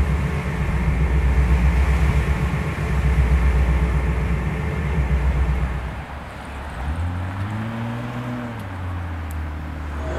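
Low, pulsing engine rumble. About seven seconds in it gives way to a deeper hum that rises and then falls in pitch.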